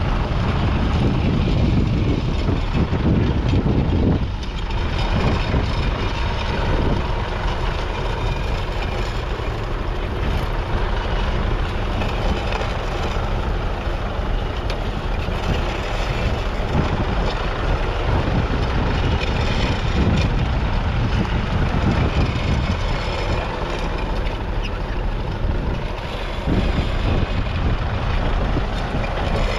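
1962 Massey Ferguson 35X's 2.5-litre three-cylinder diesel engine running steadily, with brief dips in level about four seconds in and again near the end.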